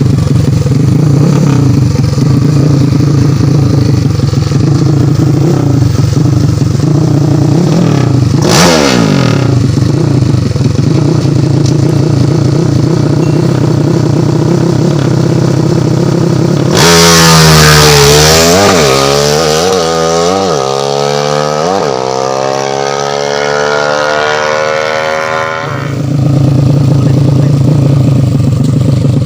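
Tuned Honda Blade 125 single-cylinder four-stroke engine idling steadily, with one quick throttle blip about a third of the way in. Past the middle it is revved hard several times in a row, then held at high revs and climbing slowly for a few seconds before dropping back to idle, as its carburettor is being set up.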